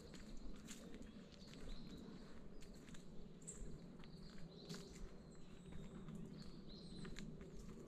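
Footsteps of someone walking on a park path, a run of soft clicks, with a few faint high bird chirps.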